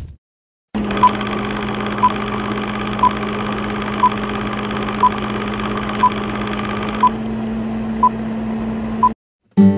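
Vintage film-leader countdown sound effect: a steady whirring hum with a short beep once a second, nine beeps in all. It starts after a moment of silence and cuts off suddenly.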